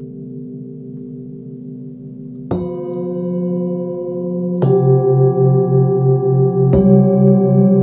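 Forged singing bowls from a seven-note set struck one after another: three strikes about two seconds apart, each adding a new tone over the bowls still ringing. The lowest tones pulse slowly as they sustain.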